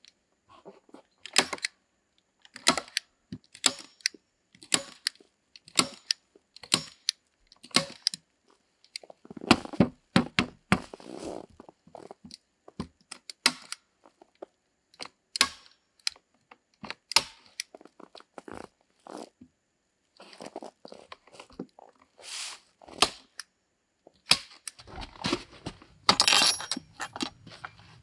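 A series of sharp clicks, about one a second, from a hand tool as insulation is fastened along the edge of a wooden plank door, with rustling handling noise in between and a longer scraping, rustling stretch near the end.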